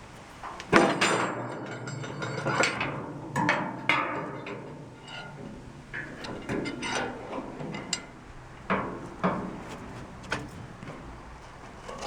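Steel clanking as a clamp-on lever tool is worked against a bent steel box tube to pull it straight: about ten sharp metal knocks with brief ringing, the loudest about a second in.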